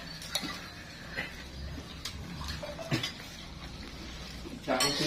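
Dishes and cutlery clinking now and then as people eat from plates, over a low murmur of the room. A man starts talking near the end.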